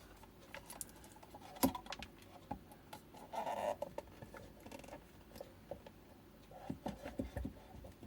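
Light clicks, taps and scraping of hands fitting a small temperature sensor and its wires onto an e-bike battery pack. The sharpest click comes about one and a half seconds in, and there is a cluster of taps near the end.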